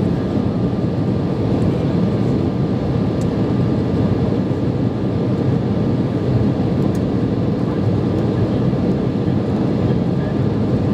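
Steady cabin noise of an Embraer 170 in its climb after takeoff: its two GE CF34-8E turbofan engines running at climb power and air rushing past the fuselage, with a faint steady whine.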